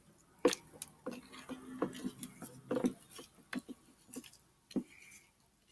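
Glue-and-borax slime being squeezed and kneaded by hand in a plastic bowl: irregular sticky clicks, pops and squelches that stop shortly before the end.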